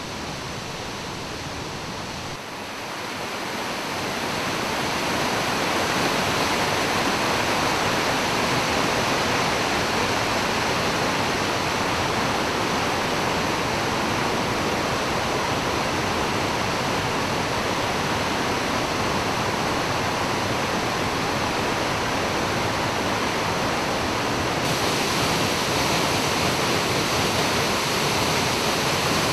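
A 30 m straight-drop waterfall, with water crashing down in a steady rushing noise. A few seconds in it swells louder, then holds steady.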